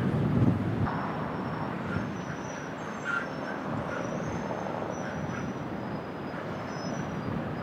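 Outdoor field-recording ambience: a steady hiss and low rumble like wind and distant traffic, with faint short high-pitched chirps scattered through it.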